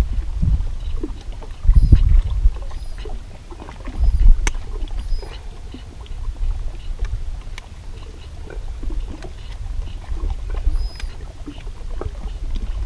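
Small waves sloshing against a rocky lake shore in uneven surges, strongest near the start and at about two and four seconds, with small clicks from handling on the rocks. A bird chirps faintly every second or two.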